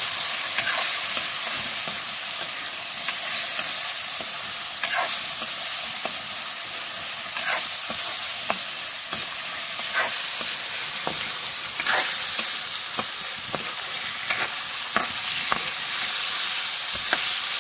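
Chicken pieces sizzling in hot oil in a metal wok, just added to the oil and spices, with a metal spoon scraping and clinking against the pan every second or two as the meat is stirred.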